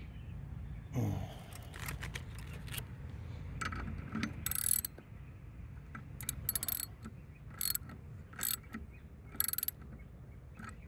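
Socket ratchet clicking in several short bursts as a nozzle is tightened into the spray bar of a pressure-washing surface cleaner, with a handling knock about a second in.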